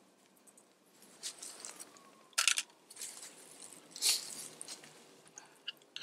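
A spoon scraping and clinking against a metal camp dish while eating, with two louder scrapes about a second and a half apart and lighter clicks around them.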